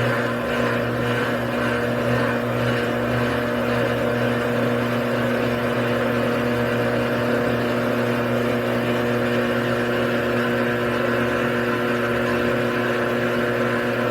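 Washing machine's electric drain pump running during the rinse/spin cycle with a steady hum that holds at an even pitch throughout. The pump is faulty and could seize at any moment.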